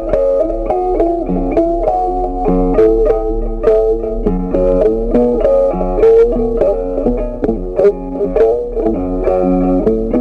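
Background music: a plucked guitar playing a melody, note after note in quick succession.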